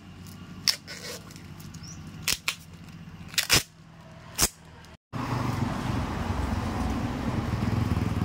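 Paper wrapping being ripped off a new motorcycle tyre by hand: several short, sharp tearing sounds over the first five seconds. After an abrupt cut about five seconds in, a steady rushing background noise runs on.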